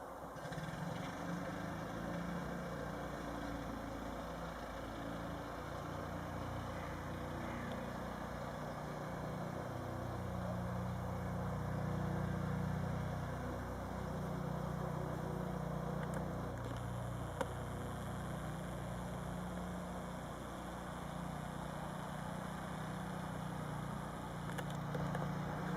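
A steady low mechanical hum, with a single short click about seventeen seconds in.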